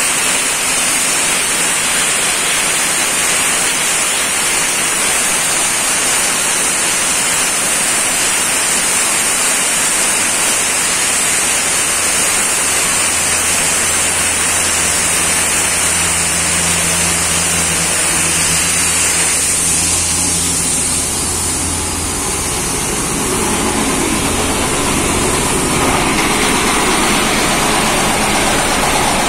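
Sandblaster nozzle blasting abrasive with compressed air onto a motorcycle engine, a loud steady hiss. About twelve seconds in, an engine's low steady hum joins underneath, and the hiss thins briefly around twenty seconds in.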